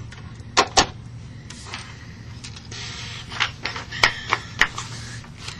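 Sharp clicks and knocks of a desk phone and papers being handled, with a brief rustle of paper near the middle, over a steady low hum.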